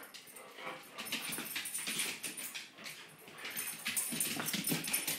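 Boxer dog scrambling about on a hard kitchen floor, claws clicking and scrabbling irregularly, with small dog sounds mixed in.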